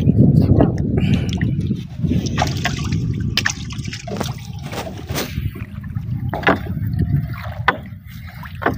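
Seawater splashing and dripping off a wet fishing net as it is hauled hand over hand into a small boat, with scattered short knocks.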